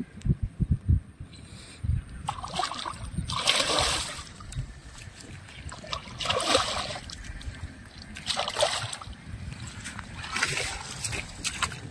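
Water splashing and sloshing in repeated surges, roughly one every two seconds, with a few low thumps in the first second.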